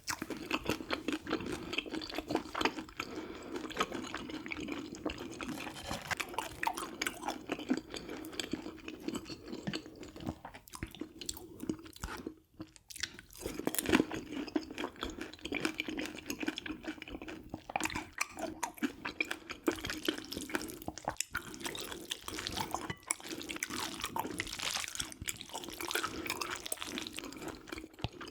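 Close-miked eating: wet, irregular chewing and smacking mouth sounds, with some crunching bites.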